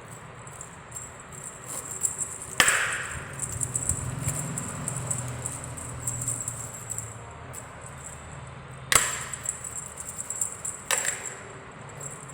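Three sharp knocks, about two and a half, nine and eleven seconds in, each with a short ringing tail, over a faint low hum.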